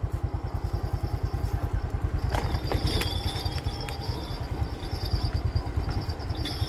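Motorcycle engine running at low speed with an even, fast low putter, heard from the rider's seat. A few sharp knocks and rattles come about two and a half seconds in, and a thin high steady tone joins from then on.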